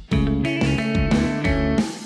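Background music led by guitar, strummed chords in a steady beat, with short breaks just after the start and near the end.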